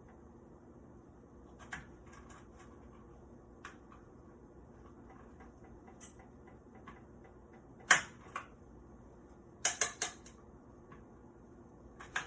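Kitchen knife knocking on a cutting board while slicing strawberries: scattered sharp taps, the loudest about 8 seconds in and a quick cluster of three near 10 seconds, over a low steady hum.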